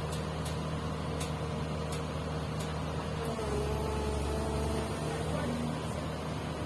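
Komatsu PC200 excavator's diesel engine running steadily, with a thin whine over the low engine note. About three and a half seconds in, the engine note gets stronger and a little louder, as under load.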